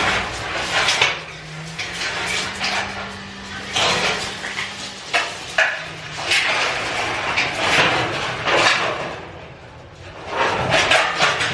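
Irregular knocking, scraping and clattering of hard objects being handled, with a faint steady hum for a few seconds in the first half.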